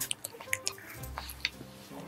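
Close-miked wet mouth clicks and smacks of someone eating a soft pistachio mousse cake, a scatter of sharp little clicks, over soft background music.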